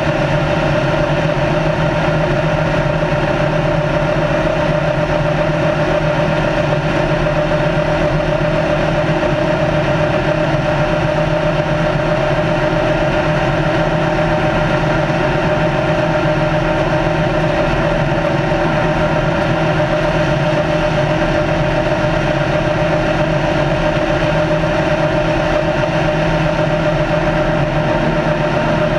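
Race car engine pulling at a steady high speed, one unchanging drone with no shifts or revving, mixed with road and wind noise inside the stripped-out cockpit.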